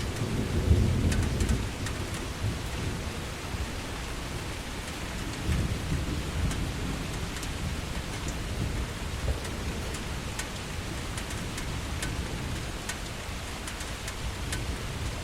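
Heavy rain falling steadily, with low rumbling swells, the loudest about a second in and another around six seconds, and scattered sharp ticks of drops striking a surface.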